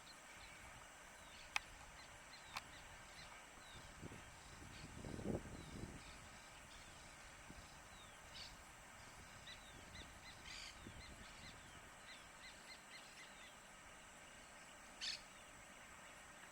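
Faint bird calls in open country: many short, high, falling chirps scattered throughout, with a louder, harsher call near the end. A low rumble about five seconds in.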